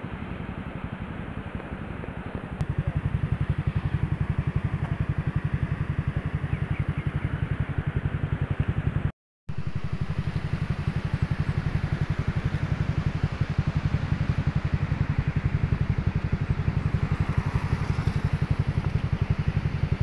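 Motorcycle engine idling: a steady, rapid low pulsing that grows louder a couple of seconds in and cuts out briefly about nine seconds in.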